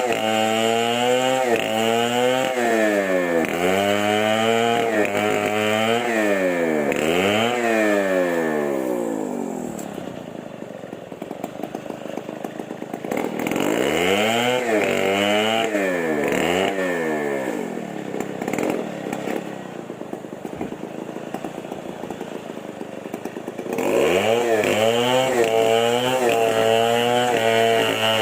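Chainsaw engine revved up and down over and over, dropping back to idle twice and then held at high speed near the end.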